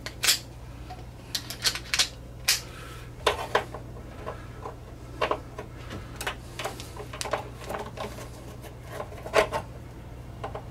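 Irregular clicks and light taps of a screwdriver and hand working at the wiring and conduit clamp on the sheet-metal top of an electric water heater, over a steady low hum.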